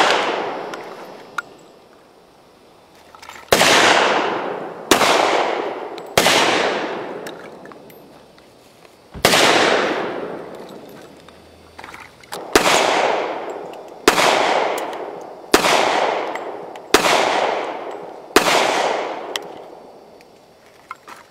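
.40-calibre pistol fired in slow single shots, about ten in all, spaced one to three seconds apart, each shot echoing away over a second or two. A longer pause near the middle, where a second shooter takes over.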